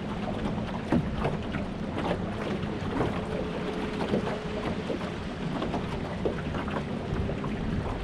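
Small boat on the water: wind buffeting the microphone and water lapping and splashing against the hull, with many small knocks and a faint steady hum.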